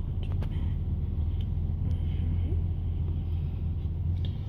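Steady low rumble of a car heard from inside the cabin: the engine and road noise of the car she is riding in.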